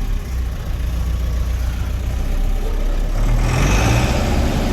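Case 995XL tractor's turbo diesel engine running steadily, growing louder and fuller about three seconds in.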